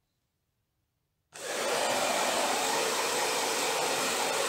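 Handheld hair dryer blowing steadily, drying wet hair; it starts abruptly just over a second in.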